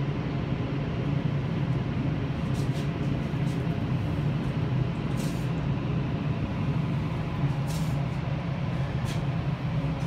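Wind tunnel fans running steadily, a constant low rumble of rushing air, with a few faint brief hisses on top.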